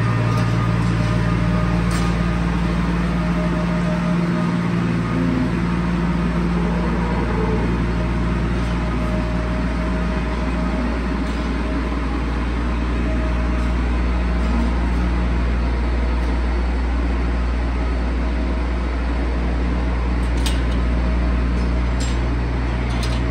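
Diesel tractor engine running at a steady low drone as it pushes feed along the feed alley, with a few faint clicks near the end.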